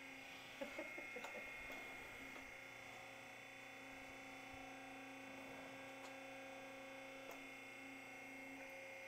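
Faint steady electric hum with a few light clicks in the first two seconds.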